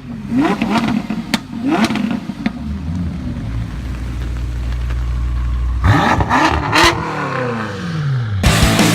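Supercar engine revving: several short throttle blips in the first two and a half seconds, a low steady rumble, then two sharp revs around six to seven seconds with the pitch falling away afterward. Loud rock music cuts in near the end.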